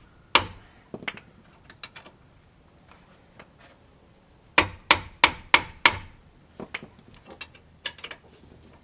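Sharp knocks from a tool striking as the Jeep's front brake caliper bolt is worked loose. There are two single knocks early, a quick run of five about a third of a second apart in the middle, then a few lighter taps.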